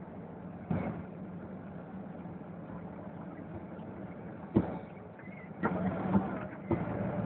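MAN TGA 410 truck's six-cylinder diesel engine running steadily under way, heard inside the cab, with several sharp knocks and rattles, the loudest about halfway through and a cluster near the end.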